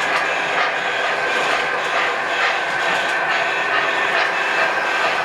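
O gauge model train running on the layout track: a steady rumble of wheels and motor with repeated clicks as it rolls over the track.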